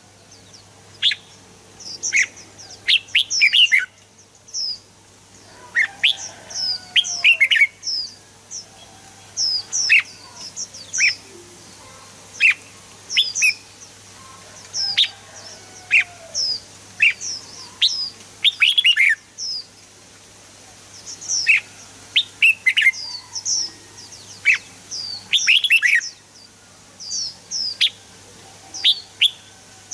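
Red-whiskered bulbul singing: short, bright phrases of quick sweeping chirps, repeated every second or two with brief pauses between them.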